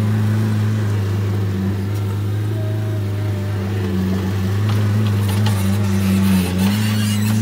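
Skid steer loader's engine running at steady revs as the machine drives and turns while handling a round hay bale, with rattling and clanking in the second half.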